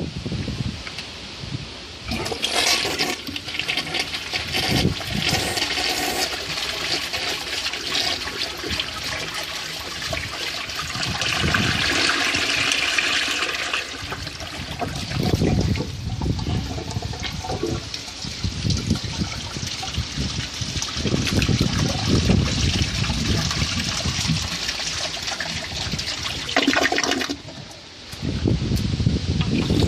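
1995 Gerber Mount Vernon toilet flushing: a rush of water starts about two seconds in and runs on, with a short lull near the end before the water noise returns.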